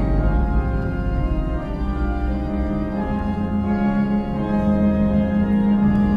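Background music of slow, long-held chords, with a low note that swells and holds steady from about two seconds in.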